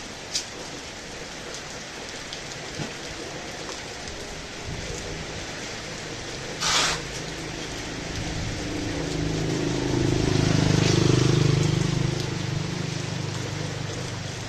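Heavy rain falling steadily, with a few sharp drip clicks at first and a short loud splash about seven seconds in. In the second half a low hum swells to a peak and eases off under the rain.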